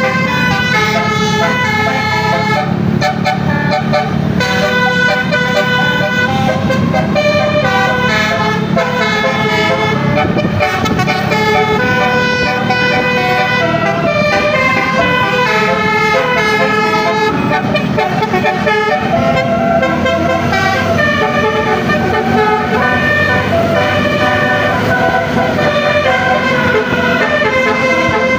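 Indonesian bus telolet horn, a set of air-horn trumpets, playing a continuous melody. Several tones sound together and step quickly from note to note over a steady low hum.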